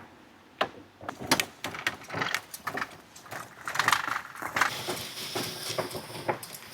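An RV's awning being opened by hand: a quick series of clicks, knocks and rattles from its metal fittings, with a short rushing sound about four seconds in.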